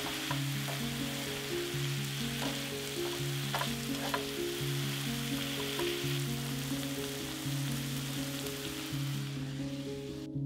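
Food sizzling in oil in a frying pan, with a few light clicks of a utensil in the pan; the sizzle fades out just before the end. Background music plays underneath.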